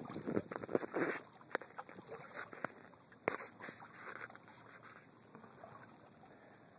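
Canoe paddling: water swishing from paddle strokes, with a few sharp knocks. The sound grows quieter after the first second or so.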